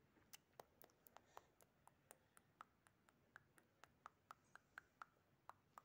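Near silence with a run of faint, light clicks, about three or four a second and slightly uneven.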